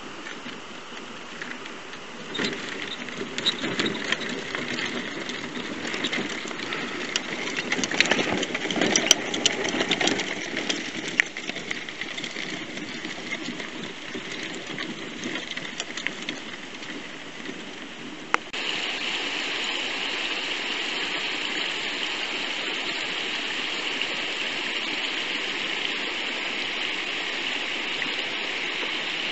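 Tramper off-road mobility scooter driving over a rough stony track, its tyres crunching and clattering on loose rocks along with the running of its motor. About two-thirds of the way through this cuts off suddenly and a steady rush of a mountain stream takes over.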